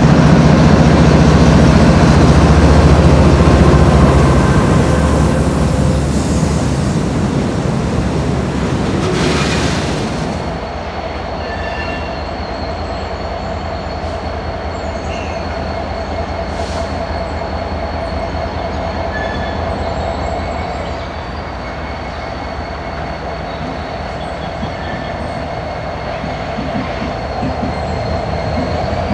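Freight train passing: its diesel locomotives go by loudly for the first ten seconds or so, then the cars roll past with a steadier, quieter rumble and a thin, high wheel squeal.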